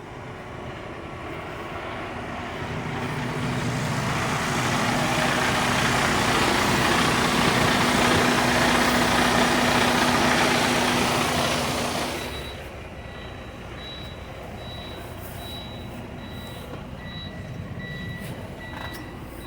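Semi truck running with a loud rushing, hissing noise over a steady low hum that swells for several seconds and cuts off about twelve seconds in. A high backup beeper then repeats, more than once a second.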